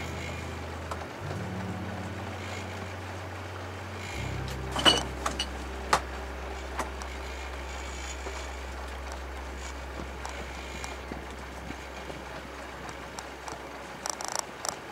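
Sailboat's inboard engine running slowly while the boat motors through the harbour: a low steady hum that shifts pitch a few times in the first four seconds, then holds. A few sharp knocks come about five to six seconds in, and a cluster of clicks comes near the end.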